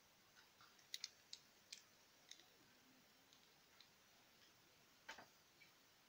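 Near silence broken by faint, irregular ticks of a paintbrush dabbing acrylic paint onto paper, a cluster of sharper ones about a second in and another about five seconds in.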